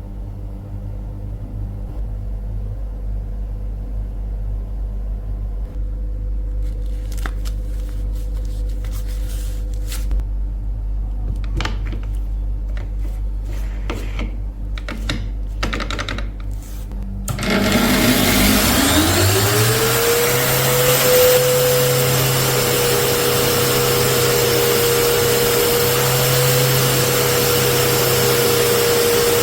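A low steady hum with a few clicks and knocks, then about seventeen seconds in an electric power tool's motor spins up, its whine rising over a couple of seconds, and runs steadily with a loud, even hiss.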